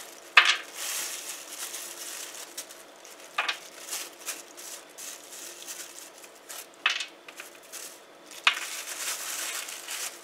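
Thin plastic bag crinkling and rustling as a hand works inside it, with four sharp clicks of nuts dropping onto a metal baking tray, the first the loudest.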